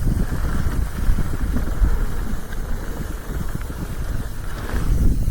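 Wind buffeting the camera's microphone while riding downhill on a mountain bike, a steady low rumble that changes in strength, with a few faint ticks from the bike on the trail.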